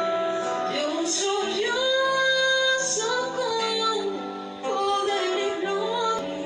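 Gypsy Christian worship song (alabanza gitana): a woman's voice comes in singing about a second in, over guitar accompaniment.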